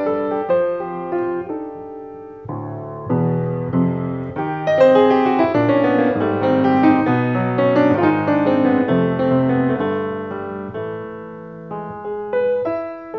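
Grand piano playing jazz chords and runs. It swells louder a few seconds in and eases off near the end.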